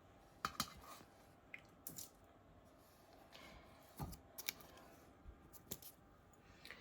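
Near-quiet room with a few faint, scattered clicks and light taps from small kitchen items being handled, about half a dozen over several seconds.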